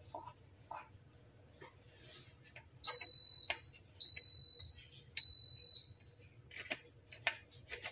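An electric oven's beeper sounds three long, even, high beeps about a second apart, with faint spoon scrapes on the dough between them.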